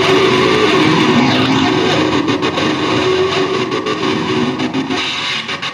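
Guitar played as noise music: a dense, harsh wash of sound over a held low drone, breaking into a rapid stutter toward the end.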